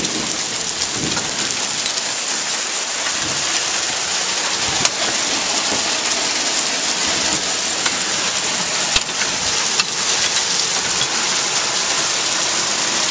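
Heavy rain pouring steadily in a thunderstorm, with a few sharp knocks about five, nine and ten seconds in.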